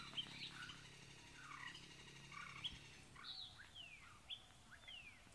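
Faint birdsong from several birds: scattered short chirps, then a run of quick falling whistles from about three seconds in.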